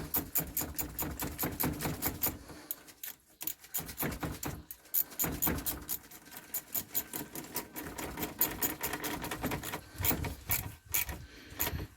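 Socket ratchet on an extension bar clicking in rapid runs with short pauses as a turbo pipe fitting is wound in.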